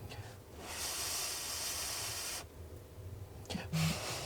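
A long breath blown out onto hot food to cool it, a steady airy hiss lasting under two seconds.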